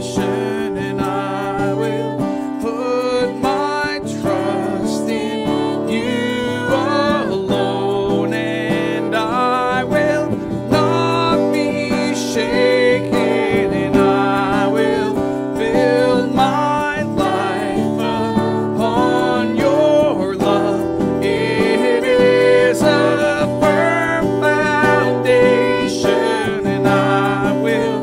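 Live worship song: acoustic guitar strummed under steady singing.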